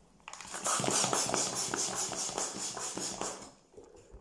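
Hand balloon pump worked in rapid strokes, air hissing through it in even pulses about five a second as a 12-inch balloon fills. The pumping stops about three and a half seconds in.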